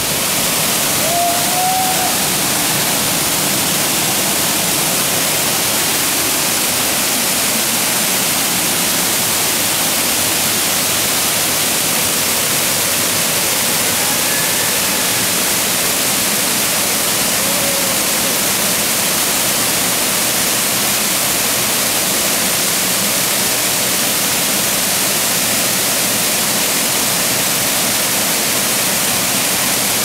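Waterfall pouring down close at hand, a steady loud rush of falling water heard from the path just behind its curtain.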